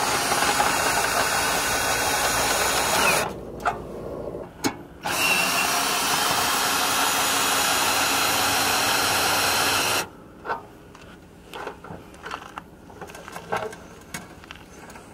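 Ryobi cordless drill driving the screw of a camper's scissor stabilizer jack to lower it. It runs steadily for about three seconds, pauses, then runs again for about five seconds before stopping. After that come scattered light clicks and knocks.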